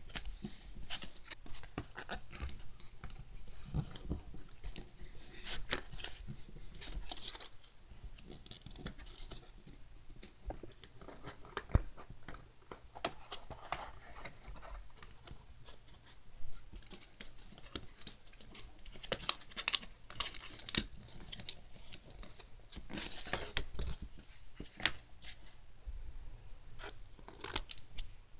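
Printed cardboard tray of a Popin' Cookin' ramune candy kit being torn along its edges and folded by hand: irregular paper crackles, rustles and a few sharper snaps.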